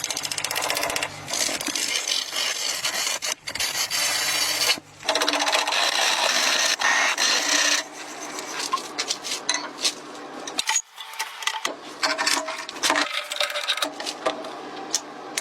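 Woodworking noise: three long stretches of rapid, machine-like rasping over a low motor hum, followed by scattered sharp knocks and scrapes.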